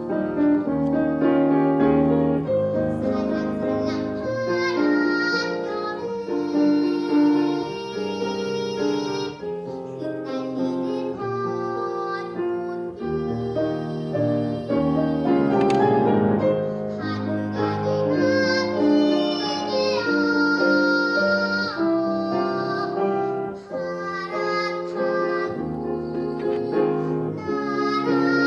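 A girl singing a Korean children's song (동요) solo over an instrumental accompaniment.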